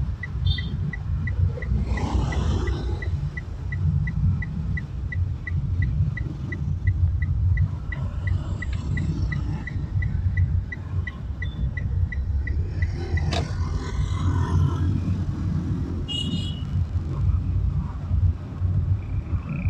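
Steady low road and engine rumble of a car driving, heard from inside the car. A regular light ticking, about three ticks a second, runs through the first two-thirds and stops, followed by a single sharp click.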